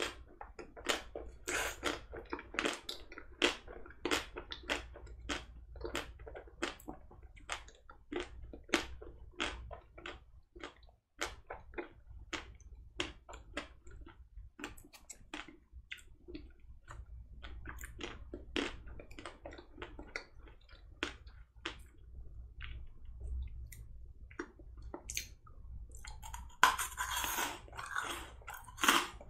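Close-miked chewing of a mouthful of chocolate-coated ice cream bar: wet mouth sounds with many small, sharp crackles as the crisp chocolate shell is crushed between the teeth. A denser, louder stretch of crunching comes about two seconds before the end.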